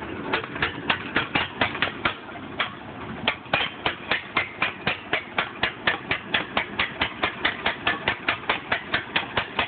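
Lincoln SA-250 welder's gasoline flathead engine running rough, a quick train of sharp exhaust pops at about five a second that stumble briefly about two seconds in. It is running on old fuel with water in it.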